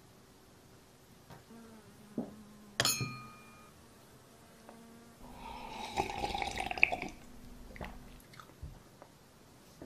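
A wine glass clinks once with a short ring. Then comes about two seconds of loud slurping and gulping as murky liquid is drunk from the glass.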